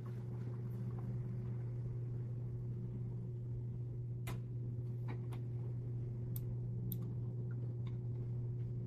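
A steady low hum with a handful of short, sharp computer mouse clicks scattered through the second half.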